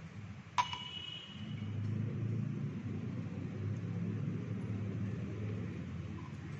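One glass clink about half a second in, a short bright ring as laboratory glassware knocks together. After it, a steady low rumble runs underneath.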